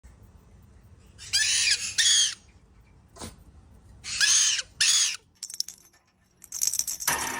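Pet parrot squawking harshly: two calls in quick succession about a second in, and two more about four seconds in. Scratchy clicks and a hiss of noise follow near the end.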